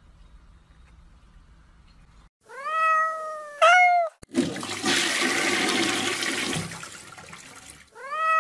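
A cat meowing twice in quick succession, then a loud, even rushing noise for about three and a half seconds, then another meow starting near the end.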